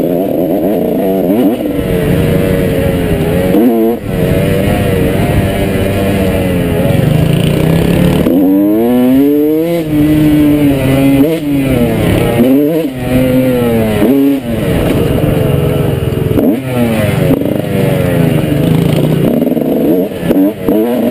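Motorcycle engine running under load, its pitch repeatedly climbing and dropping as the throttle opens and closes and the rider shifts, with a sharp rise about eight and a half seconds in.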